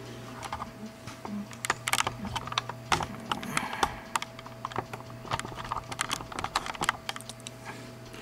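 Rapid, irregular clicking and tapping from an iBook G3 laptop, over a steady low hum.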